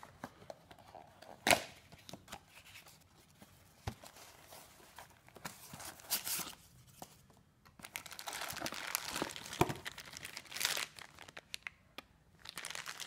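Small cardboard box and plastic bag being handled while a power adapter is unpacked: scattered clicks and rustles, with one sharp snap about a second and a half in, and a longer stretch of crinkling plastic in the second half.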